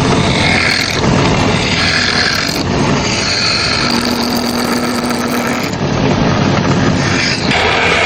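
A power woodworking tool running loudly and steadily as it cuts wood, the pitch of the cutting noise shifting as the work goes on.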